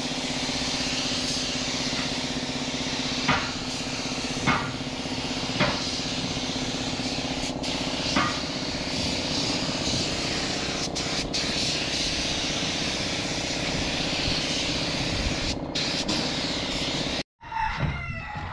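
Air-fed paint spray gun hissing steadily while spraying primer, over a steady hum. A few short sharp sounds come about three, four and a half, five and a half and eight seconds in. The sound cuts off suddenly about a second before the end.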